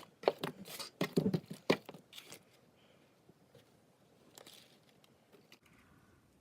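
Small elastic hair bands poured onto clear slime and crunching into it: a quick flurry of sharp little clicks for about two seconds, then only faint handling sounds.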